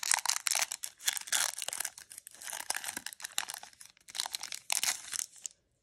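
Foil trading-card pack wrapper being crinkled and torn open by hand, a dense crackling that stops shortly before the end.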